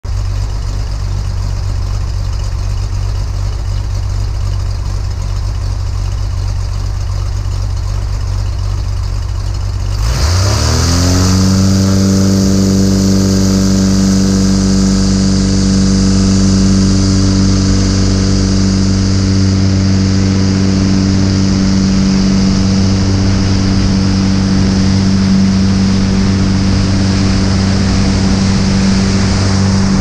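Light aircraft's piston engine and propeller, heard from a camera under the wing: running at low power, then about ten seconds in the throttle is opened and the pitch rises quickly to a steady full-power note for the takeoff roll, with strong propeller and wind rush.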